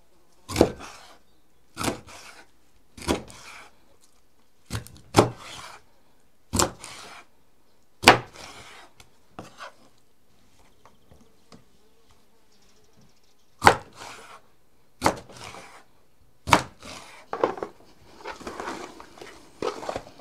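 Cleaver chopping a whole zander into steaks on a wooden cutting board: about ten sharp knocks of the blade through the fish into the board, roughly one to one and a half seconds apart with a pause midway, then softer, quicker knocks and handling noise near the end.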